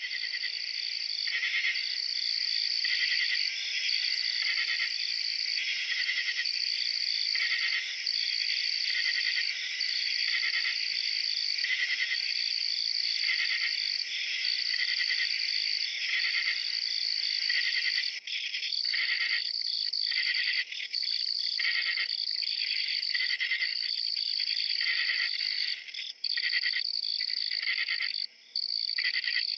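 Insect chorus: a steady high trill over a lower chirp that repeats about once a second, starting abruptly at the beginning.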